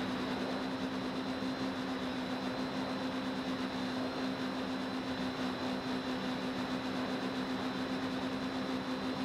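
Quadcopter's electric motors and propellers heard from a camera mounted on the craft: a steady low hum with a thin high whine on top and a constant rush of air, unchanging in pitch and level.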